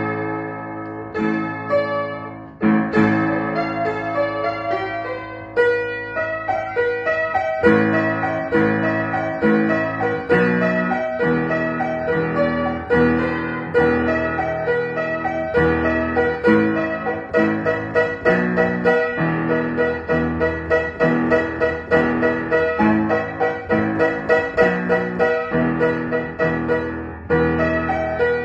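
Upright piano played with both hands. It opens with slow, ringing chords, then from about eight seconds settles into a steady, evenly repeated chord pattern.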